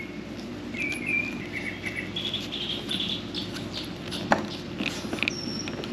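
Birds chirping in short high calls, with a single light click about four seconds in.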